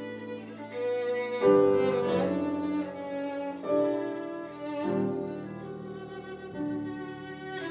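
Violin and grand piano in a free duo improvisation: the violin bows long held notes over piano chords, with fresh notes and chords coming in every second or two.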